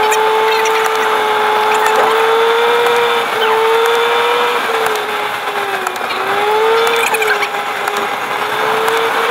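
A car driving, heard from inside the cabin: a steady whining drone from the engine and drivetrain, over road noise. Its pitch dips about halfway through and again near the end, then climbs back.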